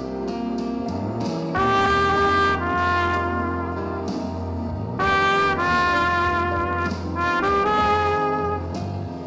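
Instrumental music with no singing: a slow melody of long held notes, each about a second, over a steady bass.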